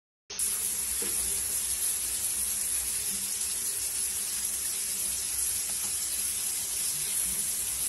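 Shower running, its spray falling steadily onto a tiled floor; the sound starts abruptly just after the beginning and cuts off near the end.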